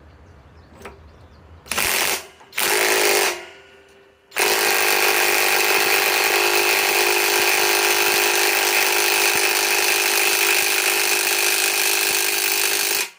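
Flex FX1451 cordless mid-torque impact wrench tightening a large 1-1/2 inch nut: two short bursts, then one long run of about nine seconds that stops abruptly.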